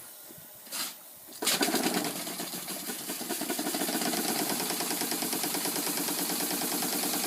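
A small Stuart Turner single-cylinder steam engine, about one and a half horsepower, starting up: after about a second and a half of faint hiss, it suddenly begins to run with a rapid, even beat that carries on and grows slightly louder.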